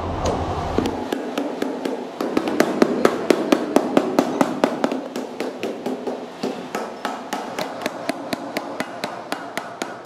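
Wooden mallet striking the edge of a sheet of metal laid over a steel bar, bending it into a fold: a steady run of quick, even strikes, about three to four a second, starting about a second in.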